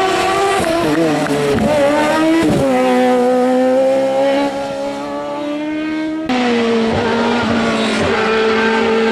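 Hillclimb race car's engine at high revs accelerating out of a hairpin, its pitch dropping sharply at a gear change about two and a half seconds in, then climbing again. The rear tyres spin and squeal under power.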